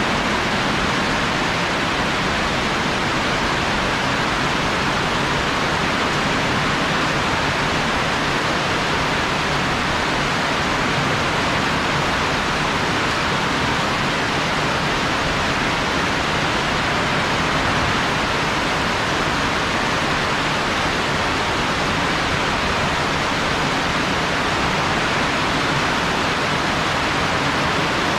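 Heavy rain falling hard, a steady, unbroken hiss.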